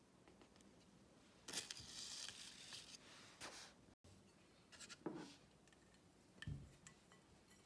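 Faint handling sounds: plastic tubs and a paper sticky-note label rustling and rubbing in the hands, a few short scrapes, and a soft low knock near the end.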